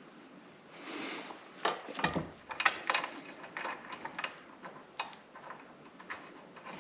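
Irregular small clicks and knocks of metal hardware as a nut is fumbled onto a vise-mounting bolt and started on its thread by hand.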